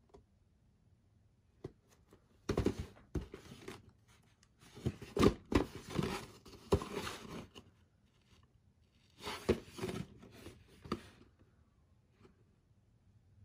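Cardboard box of a plastic model kit handled and turned over in the hands: scraping, rubbing and light knocks in three short bursts, with quiet between.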